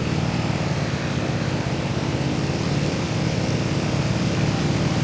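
A vehicle's engine running steadily while under way, with road and wind noise over it.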